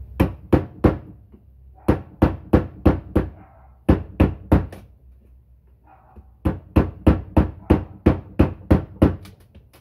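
Hammer blows struck repeatedly on the boat's transom fittings, sharp and loud at about three a second. They come in runs of several strokes, with a pause of nearly two seconds near the middle before a longer run of about a dozen.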